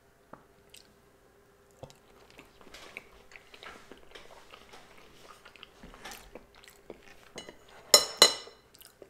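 A person chewing a mouthful of salmon sushi, a run of small mouth clicks. Near the end come two sharp clinks of tableware with a short ring, the loudest sounds here.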